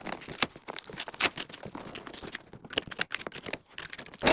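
Packing tape on a cardboard box being cut and torn open, with crinkling of packaging and a run of irregular scraping clicks.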